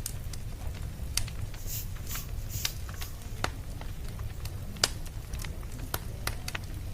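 Wood fire crackling: scattered sharp pops and snaps over a low steady rumble.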